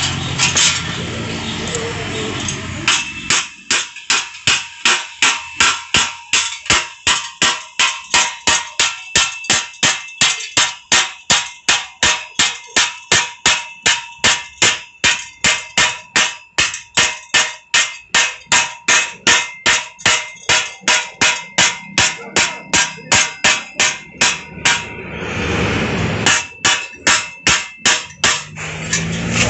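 Hammer blows on a steel insulator rack bracket clamped to a galvanized steel pipe mast, a steady run of about two to three strikes a second with a metallic ring. They pause briefly near the end, then a few more blows follow.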